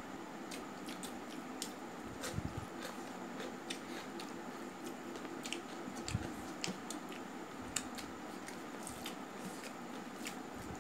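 Eating rice by hand from a stainless steel plate: fingers mixing and squeezing rice with scattered small clicks and wet squishes, along with chewing, over a steady background hum.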